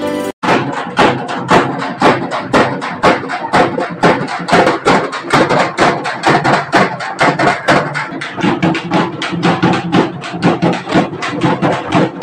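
Dappu frame drums beaten with sticks in a fast, steady rhythm, starting abruptly about half a second in after a snatch of background music.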